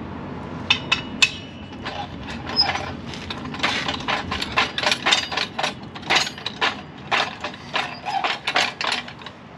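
A run of irregular sharp clicks and knocks, a few a second, from workshop equipment being handled and set in place.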